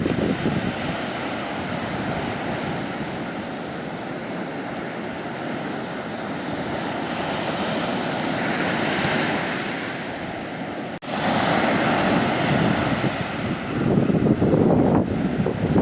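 Sea waves breaking and washing up a sandy beach: a continuous surging wash that swells and eases. There is a momentary dropout about eleven seconds in, and the surf comes back louder after it, with a strong wave near the end.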